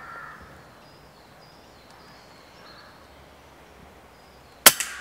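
Air rifle shot near the end: one sharp crack, followed a fraction of a second later by a smaller second crack.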